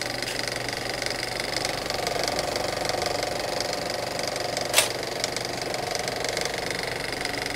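A small machine running with a fast, steady clatter over a low hum, and one sharp click about five seconds in.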